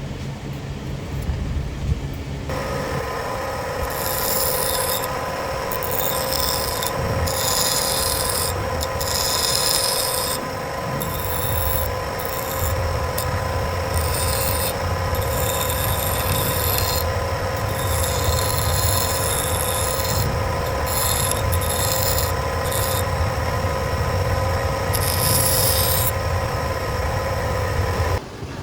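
Electric grinder running with a steady hum, its abrasive grinding steel in repeated hissing passes of about a second each. The motor starts a couple of seconds in and stops suddenly just before the end.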